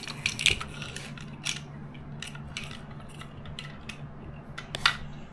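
Small toy trains clicking and clattering as they are handled and knocked against each other and a tile floor: a dozen or so short, irregular clicks, the sharpest about half a second in and near the end, over a faint steady low hum.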